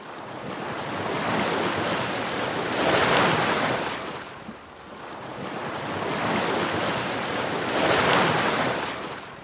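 Ocean surf: waves washing in on a beach. The sound swells twice, loudest about three seconds in and again near the end, with a lull between.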